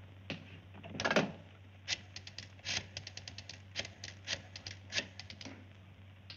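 Desk telephone handset lifted from its cradle with a clatter about a second in, then a rotary dial clicking out a number in several quick runs of clicks, over a steady low hum.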